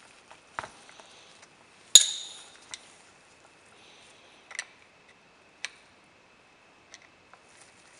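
Metal revolver and steel screwdriver being handled on a work mat: a few sharp clicks and taps. The loudest comes about two seconds in, a metallic clink with a short ringing tail, and the screwdriver is set into a grip frame screw on the underside of the Colt Open Top revolver.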